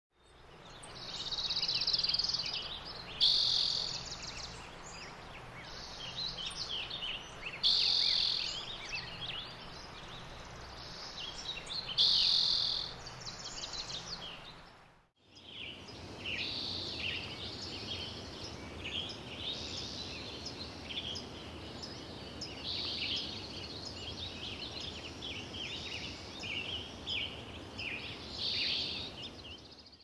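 Spring chorus of many wild songbirds singing and calling over one another. In the first part a few loud songs stand out about every four seconds over a faint low hum. About halfway through, a short break leads into a second recording where the chorus goes on at a more even level, with no song standing out.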